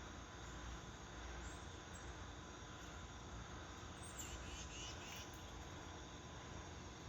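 Outdoor morning ambience: steady insect trilling over a low background rumble, with a short burst of bird chirps about four seconds in.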